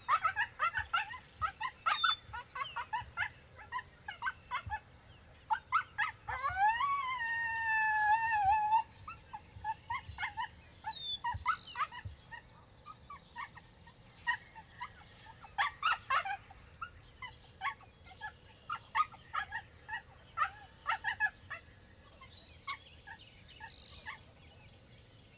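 Coyote vocalizations: a rapid run of high yips and barks, with a wavering howl from about six to nine seconds in, after which the yips grow sparser and fainter.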